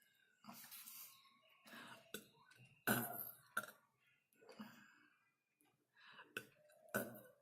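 A person burping and coughing in a run of about five short throat sounds, the loudest about three seconds in.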